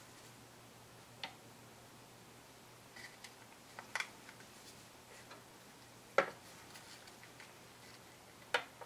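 Scattered light clicks and taps of plastic paint cups and wooden craft sticks being handled while acrylic paint is poured into a plastic cup; a handful of sharp ticks, the two loudest in the second half.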